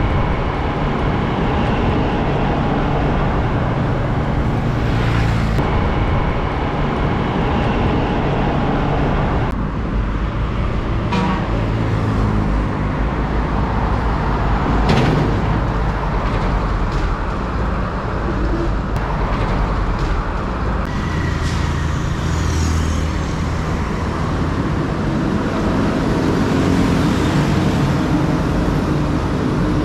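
Road traffic with heavy diesel trucks driving past: a steady mix of engine hum and tyre noise, changing abruptly a few times.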